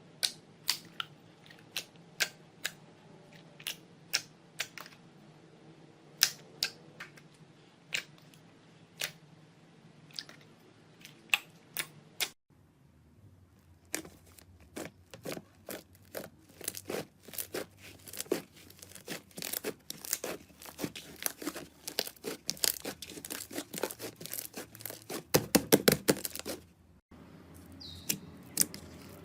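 Slime being played with, making sharp clicking pops and crackles. They come about one every half second to second at first, then turn into a dense run of crackling from about halfway, with a brief stop near the end.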